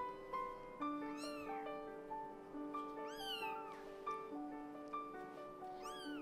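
Cat meowing three times, each meow rising and falling in pitch, about two seconds apart, over soft background music with sustained notes.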